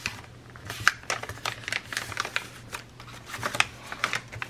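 Heavy coffee-dyed paper crunching and crackling as it is folded and creased by hand, in a quick irregular run of crisp crackles. The crunch is the sign of thick, good-quality paper.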